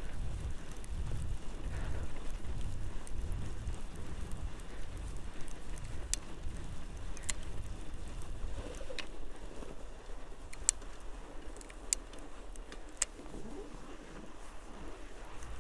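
Outleap Hercules fat bike rolling over snow, with wind rumbling on the microphone; the rumble eases about halfway through. About six sharp clicks come in the second half.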